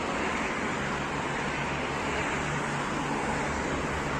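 Steady low mechanical hum under an even rushing noise, unchanging throughout.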